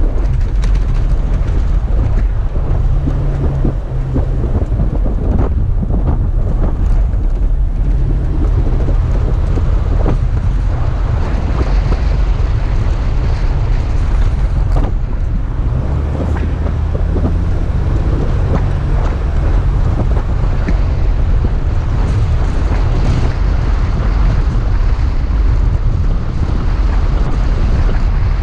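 Toyota FJ Cruiser driving through deep sand: a steady low rumble of engine and driving noise with wind buffeting the microphone, and scattered knocks and rattles.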